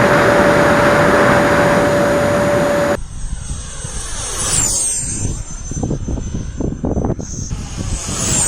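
Radio-controlled model L-39 Albatros jet. First a steady, loud rush with one held tone, then an abrupt cut to a high whine that drops in pitch as the model flies past, about four and a half seconds in and again near the end.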